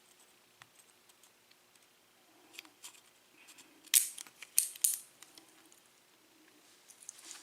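Small metal parts clicking and clattering as a Corbin Russwin pin-tumbler lock cylinder is taken apart. There are a few light clicks, then a sharp cluster of four or five louder ones about four seconds in, and more light clicks near the end.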